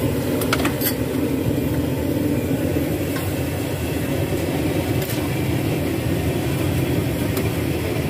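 Steady rushing noise of a gas wok burner firing under a wok of rad na gravy, with a few light clicks of a metal ladle against the pans.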